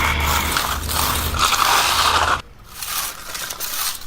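Stiff broom dragged across fresh concrete for a broom finish: a scratchy brushing scrape in two stretches, with a low hum underneath that stops about two and a half seconds in.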